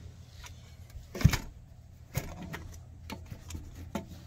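Metal lid of a V-Line compact pistol safe (279-S) shutting with a knock about a second in, then a second knock and a few lighter clicks as its latch and handle are worked to relock it.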